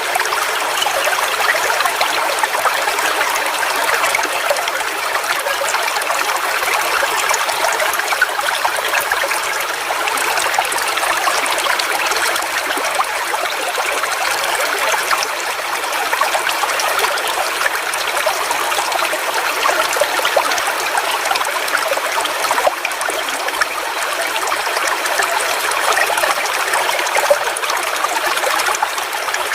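Forest waterfall's water falling and splashing in a steady rush, with no pauses or changes.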